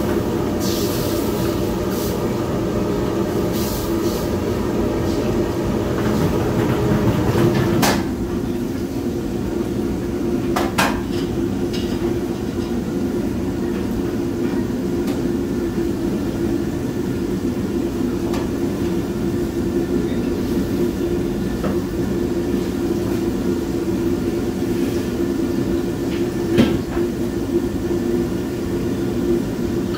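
Steady roar of a commercial wok range's gas burner and the kitchen exhaust hood, with a few sharp metal clanks from the wok and utensils.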